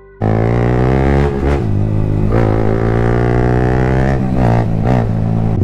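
Yamaha MT-15's single-cylinder engine running loud through an aftermarket Akrapovic exhaust. It cuts in suddenly and holds steady, with the revs dipping and picking back up several times.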